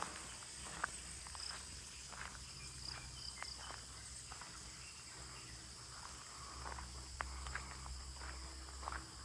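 A chorus of insects trilling steadily and high-pitched, with scattered light ticks and taps over it and a low steady hum underneath.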